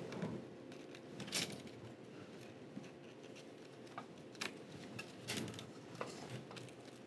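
Faint handling sounds: a few scattered soft clicks and rustles as flat ribbon cables are slid out of their connectors on an LCD TV's T-con board by gloved fingers.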